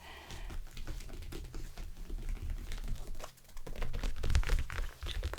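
ASMR massage sounds: hands rubbing and pressing in circles on the microphone, as on a lower back, giving a dense crackly rubbing over a low rumble, loudest about four seconds in.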